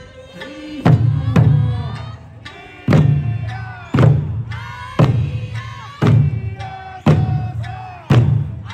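Eisa drums struck in unison about once a second, each beat dying away before the next, with an extra stroke about a second and a half in. Under the drumming runs an Okinawan folk song with singing.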